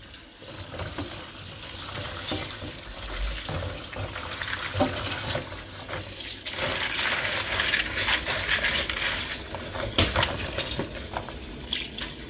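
Kitchen tap running into a plastic colander of beans in a sink while a hand stirs and rinses the beans under the stream. The water noise grows louder for a while in the middle, and there are a couple of light knocks.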